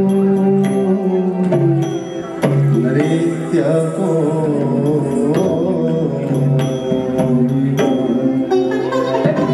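Odissi dance music: a voice singing a bending melody over a held low tone, with regular drum strokes.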